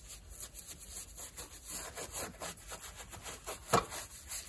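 Paintbrush bristles scrubbing pine-tar oil into old rough timber logs, quick repeated back-and-forth strokes, about three a second.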